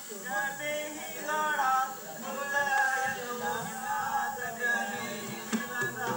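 Singing with musical accompaniment, a song played through a television's speaker.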